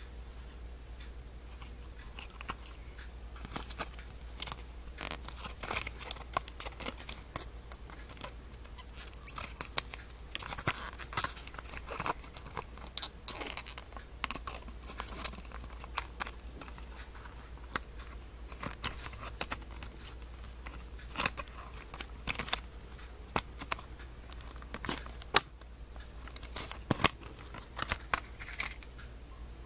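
Packaging of a sticker-jewelry set being opened and handled by hand: irregular rustling, crinkling and tearing with sharp clicks, over a steady low hum.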